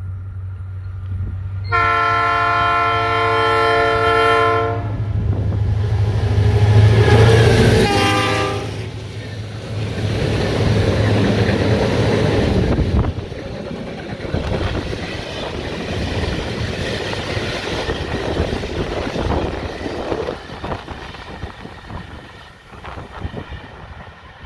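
A freight train passing close by. The locomotive sounds its horn, a chord of several tones held about three seconds, then gives a short second blast as it goes by, with its engine running. The loaded flatcars then roll past with wheels clattering over the rail joints, fading away near the end.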